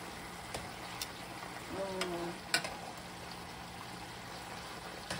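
Chicken pieces sizzling in a pan as the soy-and-vinegar adobo sauce cooks down, with metal tongs clicking against the pan a few times as the chicken is turned.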